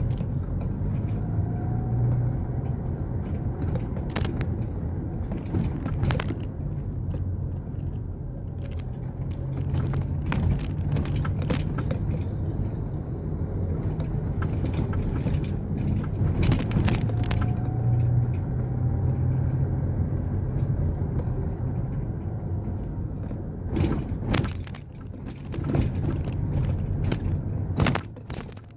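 Car driving along a town street, heard from inside the cabin: a steady low rumble of engine and road noise, with occasional short clicks and knocks.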